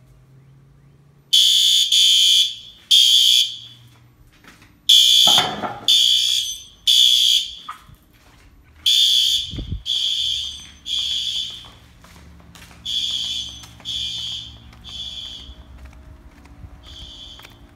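Fire alarm sounding the temporal-three evacuation pattern: high-pitched beeps in groups of three, about a second apart, with a pause between groups. The beeps start about a second and a half in and grow fainter in the later groups; a low thump comes about halfway through.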